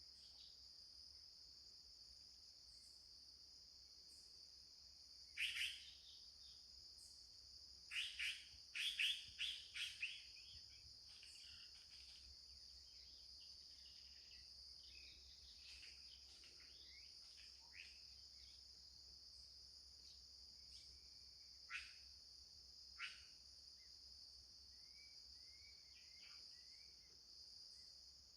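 Forest ambience: a steady, high-pitched chorus of insects, with birds calling over it. A loud call comes about five seconds in, then a quick run of calls around eight to ten seconds, then two single sharp calls near the end. Fainter chirps are scattered between them.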